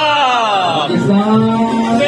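Man singing a Pakistani patriotic song into a microphone, drawing out long notes that slide downward, with a held low note in the second half.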